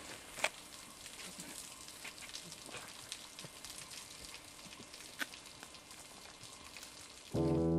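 Scattered crackles and snaps of footsteps through dry brush and twigs, with a faint rustle. Music starts suddenly near the end.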